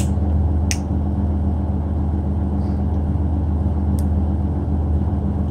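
Steady low background hum. Over it, a few short sharp clicks of a plastic earbud housing being pried open with fingernails: one just under a second in and one about four seconds in.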